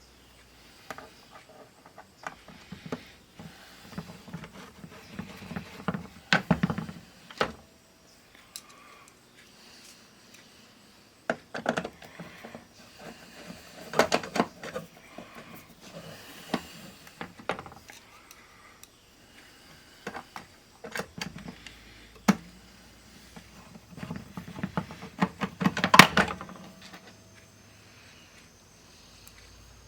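Irregular handling noises: scattered clicks, knocks and rustles in clusters, the loudest knock near the end.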